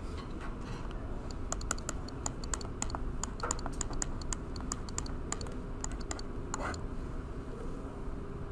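Pen stylus tapping and scratching on a touchscreen while writing by hand: a quick, irregular run of light clicks.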